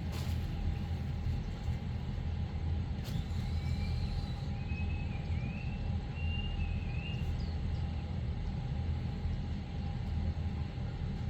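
Steady low mechanical rumble with a faint steady hum above it, and a few short high chirps in the middle.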